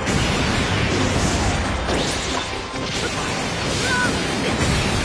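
Cartoon explosion and crashing sound effects as debris flies, a dense continuous crash without pauses, with music underneath.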